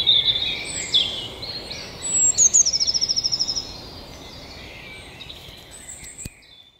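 Several birds singing in the early-morning dawn chorus, overlapping high whistles and chirps, with one fast trill of rapidly repeated notes about two to three seconds in. The birdsong gets fainter after that and cuts off near the end.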